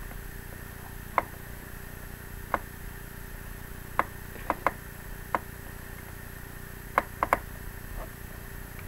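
Computer mouse button clicking about ten times at irregular intervals, some in quick pairs and triplets, as lines are drawn in a paint program. A faint steady hum runs underneath.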